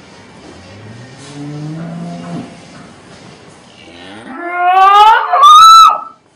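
A cow calling: a low rising moo, then a much louder, high-pitched rising bawl near the end that cuts off suddenly.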